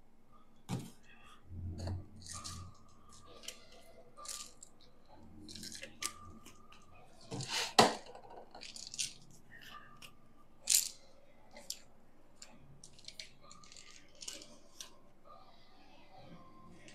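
Plastic supplement tubs and bottles being handled and set down on a wooden desk: scattered clicks and knocks, the loudest about eight seconds in and again near eleven seconds.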